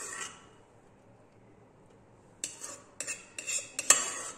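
Metal spoon scraping and clinking against the inside of a pressure cooker, scooping out boiled raw mango. A short scrape at the start, then a pause, then a quick run of scrapes and clinks in the last two seconds, loudest near the end.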